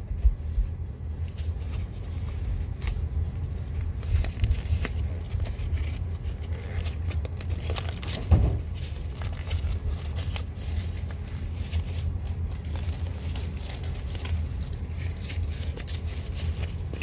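Close handling noise: a steady low rumble with scattered scrapes and rustles, and one louder knock about eight seconds in.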